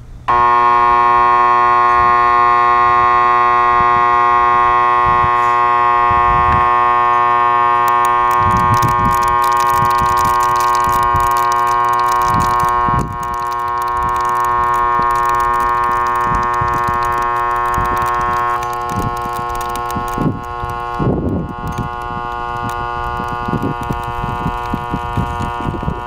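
Eureka Pet Pal vacuum cleaner switched on, starting abruptly and running with a loud, steady buzzing tone. Low thumps and knocks come in and grow more frequent in the second half.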